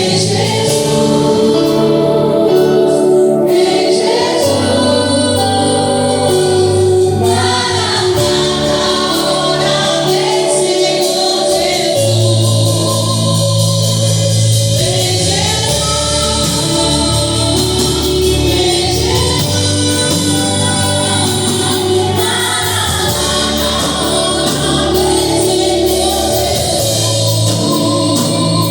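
A song with a choir of voices singing over held bass notes that change every few seconds.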